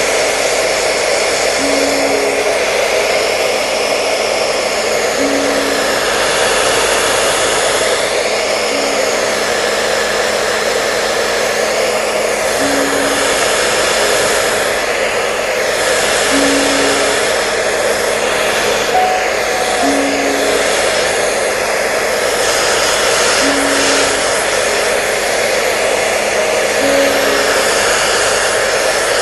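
Hair dryer running steadily with a constant, even whoosh of air and motor. A faint short low tone recurs about every three and a half seconds.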